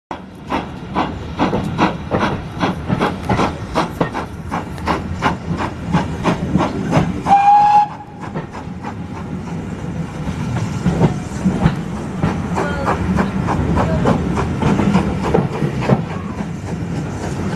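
Steam locomotive working hard, its exhaust beats coming about two to three a second, heard from a coach behind it. A short blast on its whistle comes about seven seconds in. After that the beats give way to a steady rumble and clatter of the coach wheels on the rails.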